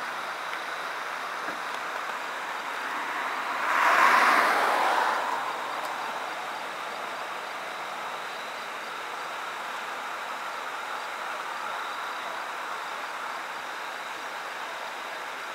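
Steady roadside traffic noise, with one vehicle passing close by about four seconds in, swelling and fading over a couple of seconds.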